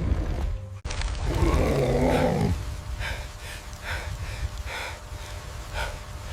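An animal-like roar or growl about a second and a half in, followed by a run of short sharp sounds, over a low rumble.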